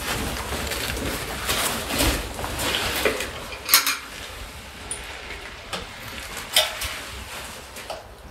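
Small metal pot with a wire handle clinking and knocking as it is handled, with scuffing on a gravelly floor over the first few seconds; the sharpest clink comes nearly four seconds in.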